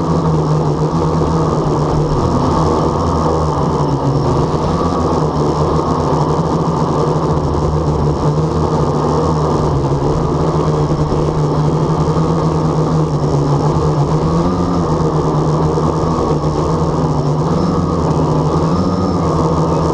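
Blade 350 QX quadcopter's electric motors and propellers running in flight, a loud steady buzzing hum whose pitch rises briefly a few times as the motor speeds shift.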